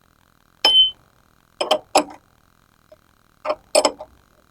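A 17 mm wrench clinking against a crank puller as it is turned to draw an e-bike crank arm off. There are about six sharp metallic clicks, mostly in quick pairs, one with a brief ring, over a faint steady hum.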